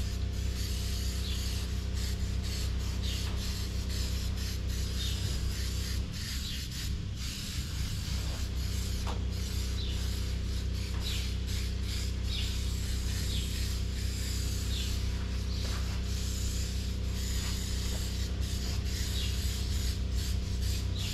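Aerosol spray-paint cans hissing in many short, repeated bursts, two cans at work together, over a steady low machine hum.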